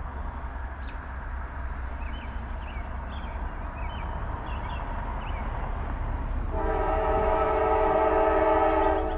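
Horn of an approaching Norfolk Southern freight locomotive, not yet in sight, sounding one long chord of several tones at once starting about six and a half seconds in and lasting about two and a half seconds, over a steady low rumble.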